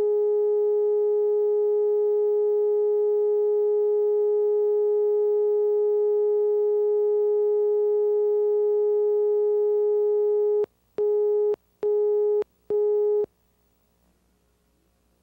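Steady line-up reference tone on a videotape commercial's leader, which stops about ten and a half seconds in and gives way to three short countdown beeps about a second apart, cueing the start of the spot.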